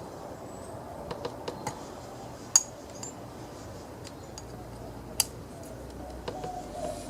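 Small metal parts and tools clicking and tapping as a retaining clip is worked onto a chainsaw's clutch. The clicks are scattered, with two louder snaps about two and a half and five seconds in.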